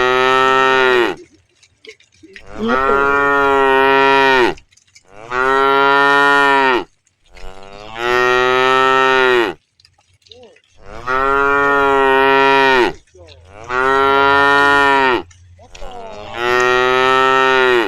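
Cows mooing over and over: about seven long moos, each lasting a second and a half to two seconds and holding a steady pitch, with short pauses between them.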